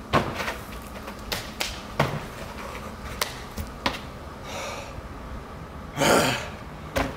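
Scattered sharp slaps and knocks of hands and shoes striking concrete during parkour moves, with a brief rushing whoosh about six seconds in.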